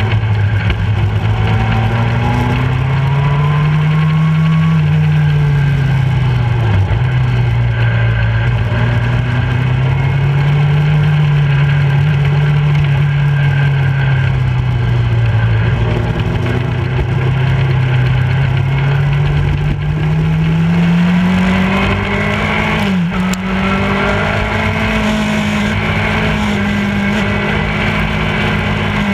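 Motorcycle engine under way, its note swelling and falling every few seconds with the throttle and climbing higher about two-thirds of the way through, over a steady rush of wind.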